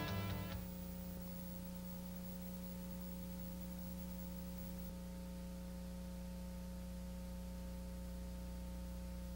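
Steady electrical hum with hiss from a blank stretch of video recording; the tail of background music dies away in the first half second.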